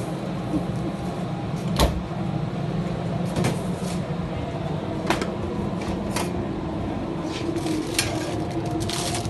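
Steady roar of a professional wok station, with sharp metal clanks of the wok and ladle every second or two and quicker clatter near the end as the food is tossed and stirred.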